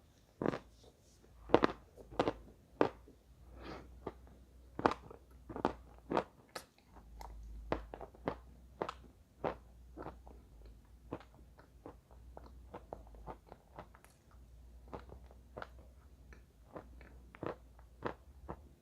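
Chalk being bitten and chewed close to the microphone: a long string of sharp, irregular crunches, loudest in the first few seconds and then fainter and closer together.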